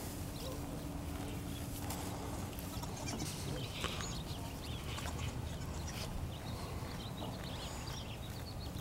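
Nigerian dwarf goats bleating, a few short bleats about halfway through and again near the end, over a steady low background rumble.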